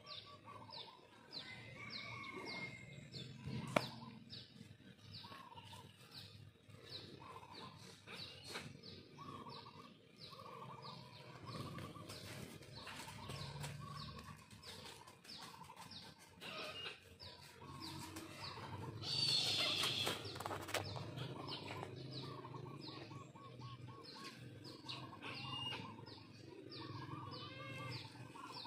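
Faint bird chirps, with a thin high tick repeating about two to three times a second throughout and one louder, shrill bird call about two-thirds of the way through.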